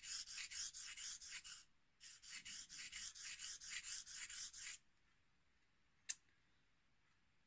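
Straight razor blade stroked quickly back and forth on a wet 1000-grit ceramic whetstone while setting the bevel: a fast run of short, evenly spaced scraping strokes, a brief pause, then a second run. A single sharp click about six seconds in.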